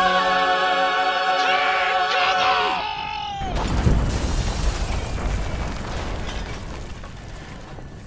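A chorus and orchestra hold a long final chord, which ends with a falling slide about three seconds in. A loud boom then breaks in and rumbles on, fading away slowly.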